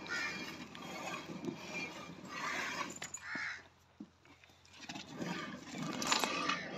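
Buffalo being hand-milked into a stainless steel bucket: streams of milk hissing against the bottom of the near-empty pail, with a pause of about a second just past the middle.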